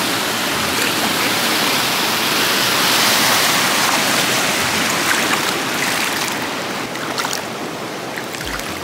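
Steady rush of shallow stream water flowing over and around shoes standing in the current, with a few light splashes from the shifting feet in the later seconds.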